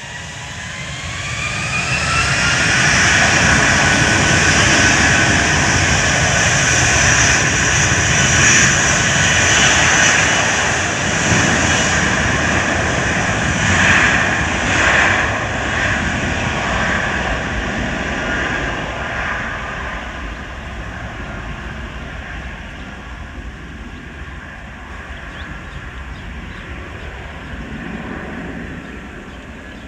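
Jet engines of Lion Air's largest airliner at takeoff. A whine rises in pitch over the first few seconds as the engines spool up. The roar then stays loud for about fifteen seconds and fades slowly away.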